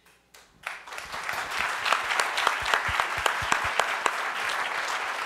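Audience applause: a few scattered claps, then under a second in it swells quickly into steady clapping from many hands.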